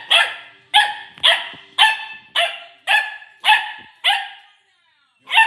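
Corgi puppy barking repeatedly: eight sharp barks at about two a second, then a pause of about a second before one more bark near the end.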